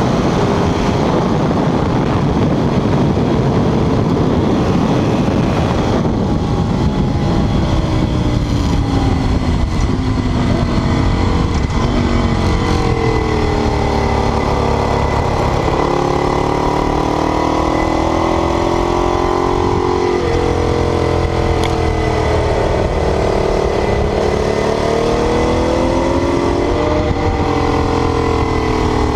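Ducati 848's L-twin engine running hard under load, its pitch repeatedly climbing and falling as the bike accelerates, shifts and slows.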